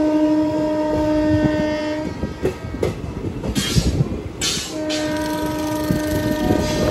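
A train's locomotive horn sounding two long, steady blasts of one pitch, the second starting about two and a half seconds after the first ends, heard from the moving train over its running rumble and wheel clatter. Between the blasts there is a short hissing rush.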